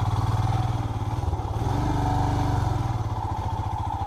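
Royal Enfield Himalayan's single-cylinder engine running at low speed with an even, pulsing exhaust note, the revs rising briefly about a second and a half in and dropping back, as the bike works through deep mud.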